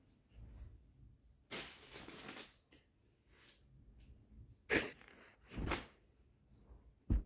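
Cloth and plastic packaging rustling as folded suit fabric is shaken out and handled, a longer swish about one and a half seconds in, followed by three short thumps in the second half.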